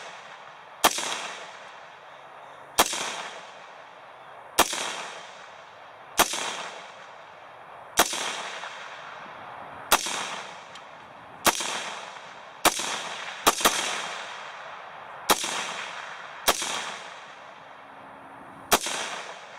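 AR-15 rifle chambered in 7.62x39 firing a string of single shots, about thirteen of them roughly every one and a half to two seconds, two coming close together near the middle. Each shot is followed by a fading echo. The rifle cycles every round without a stoppage.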